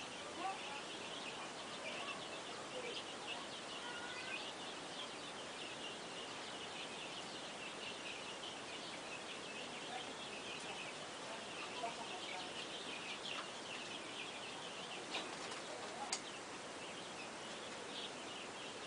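A flock of chickens calling, many short high calls overlapping in a steady chatter, with two or three sharp clicks late on.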